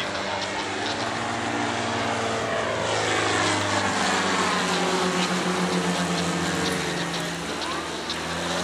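Propeller engines of Silence Twister aerobatic planes droning overhead during a display, the engine note sliding and shifting in pitch as they manoeuvre.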